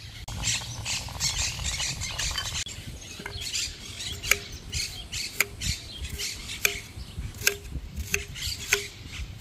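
Birds chirping and squawking. Sharp clicks or knocks come about once a second through the second half.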